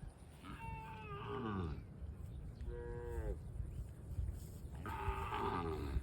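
Cattle mooing: three separate calls, each sliding down in pitch at its end, over a low rumble.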